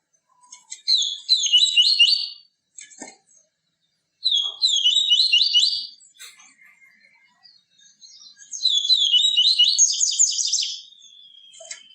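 Papa-capim seedeater singing: three phrases of rapid, repeated high chirping notes, each about two seconds long, the last trailing off into a thin falling whistle.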